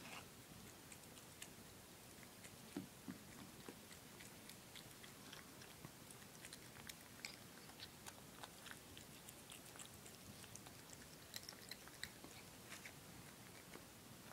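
A cat eating soft, rehydrated dehydrated cat food from a bowl: faint, wet chewing with a steady run of small clicks and smacks.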